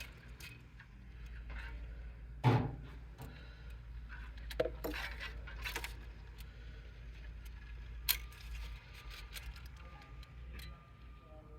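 Small clicks, taps and rustles of flat ribbon cables and plastic parts being handled and pushed into place inside a printer, with one sharper knock about two and a half seconds in, over a low steady hum.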